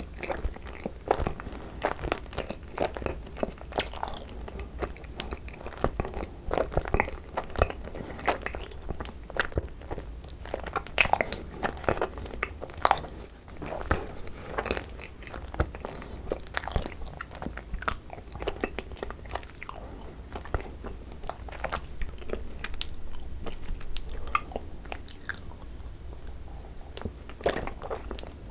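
Close-miked eating of cream-cheese-filled Korean rice cakes (tteok): biting and chewing, with many small irregular mouth clicks.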